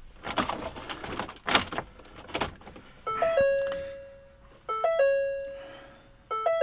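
Keys jangling on the ignition key ring as the key of a 2012 Ford Explorer is worked. About three seconds in, the dashboard warning chime starts: a few quick rising notes and one long fading tone, repeating about every second and a half.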